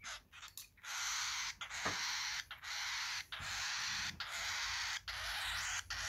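Baby cockatiel's food-begging call, a harsh raspy hiss. After a few short rasps it settles, about a second in, into long loud strokes broken by brief pauses a little under once a second.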